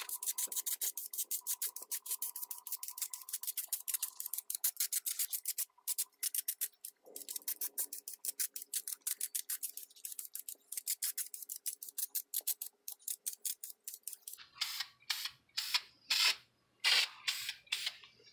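Aerosol spray can of Dupli-Color vinyl and fabric coating in use, lightly dusting foam armour: a rapid run of short, sharp strokes, many a second, then a few longer, spaced bursts near the end.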